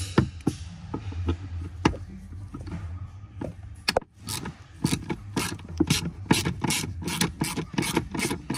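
Socket ratchet clicking as it works a Torx-bit extension on a glove box screw: a few scattered clicks, then from about four seconds in a steady run of clicks, about three a second.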